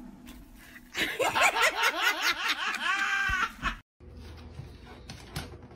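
A person laughing in rising and falling bursts for about three seconds, then a cut to quiet room hum.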